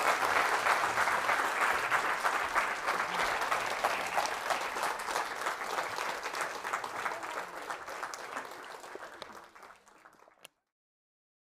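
Audience applauding, many hands clapping at once, fading away steadily before cutting off to silence about ten seconds in.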